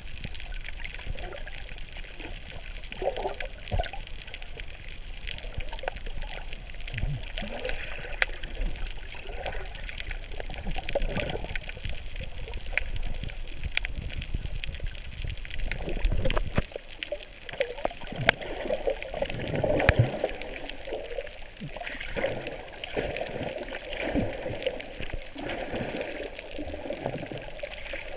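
Underwater sound of bubbles and churning water around a submerged camera, with irregular crackles and gurgles from swimmers moving in the water near the surface.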